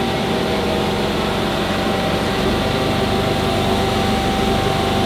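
Steady mechanical hum and air noise of running shop equipment, with one constant whine held throughout.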